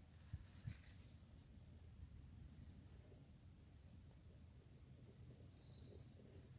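Near silence: faint outdoor ambience with scattered soft, high chirps from small birds, a brief trill a little over five seconds in, and two low thumps near the start.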